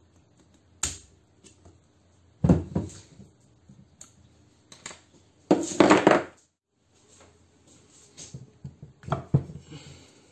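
Metal hand tools and parts clanking and knocking in several separate bursts: a sharp click, then a cluster of knocks, a longer loud rattle and a few more knocks near the end.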